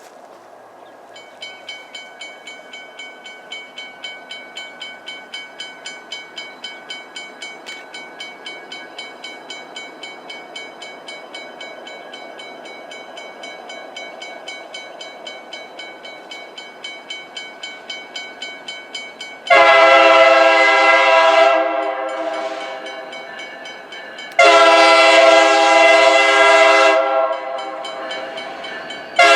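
Railroad grade-crossing bell ringing, about two and a half strokes a second. Then a locomotive air horn sounds two long, loud chord blasts about twenty and twenty-five seconds in, and a third starts right at the end: the horn signal of a train approaching the crossing.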